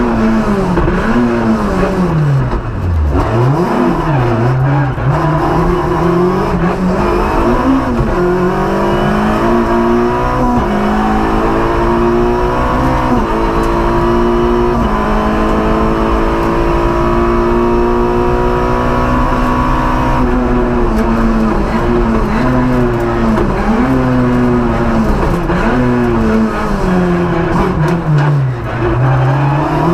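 Peugeot 106 Maxi rally car's 1.6-litre 16-valve four-cylinder engine, heard from inside the cockpit, driven hard at high revs. In the middle its pitch climbs and steps back through several upshifts. About three seconds in and again near the end it drops sharply under braking and downshifts, then picks up again.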